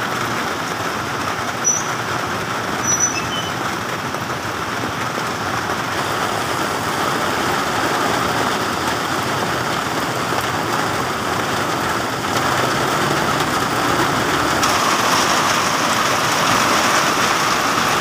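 Heavy storm rain pouring down steadily, an even hiss of rain on wet pavement that grows a little louder about fifteen seconds in.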